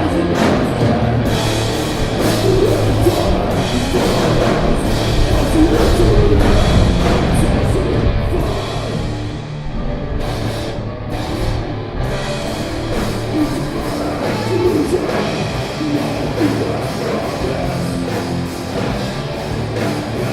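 Stoner metal band playing: distorted guitars, bass and a drum kit, with the cymbals briefly dropping away about ten seconds in.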